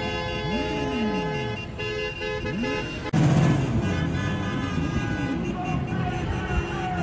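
Several car horns held in long, steady blasts over engines revving up and down from a convoy of cars and motorcycles. About three seconds in the sound cuts abruptly to a louder, lower engine rumble with more horns.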